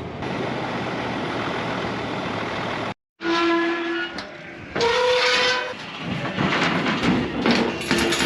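Steady wind or vehicle noise, cut off suddenly about three seconds in, followed by several long, drawn-out livestock calls, sheep or cattle, one after another.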